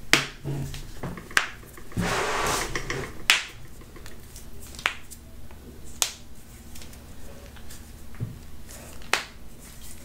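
Toe joints being cracked: about six sharp, separate pops spread over several seconds, with a second of rustling noise about two seconds in.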